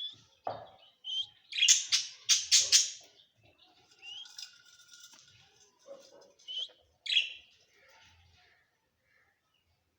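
Parrot calling: a quick run of loud, shrill chirps about a second and a half in, then fainter chatter and a few single calls, dying away near the end.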